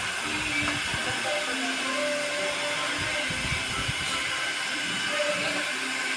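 Hand-held hair dryer running steadily while blow-drying hair, a constant airy hiss.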